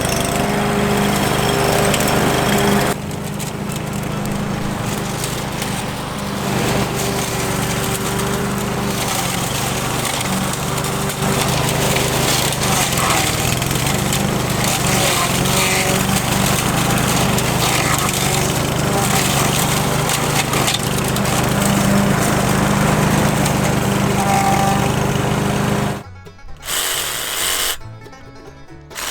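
A motor running steadily under background music, dropping out briefly twice near the end.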